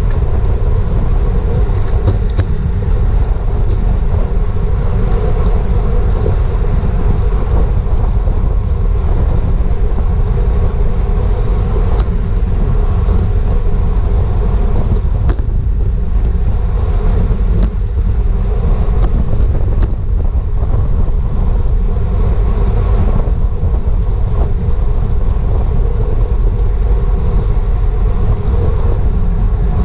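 Wind rushing over a GoPro's microphone on a road bike at racing speed: a steady, loud low rumble, with a handful of sharp clicks scattered through it.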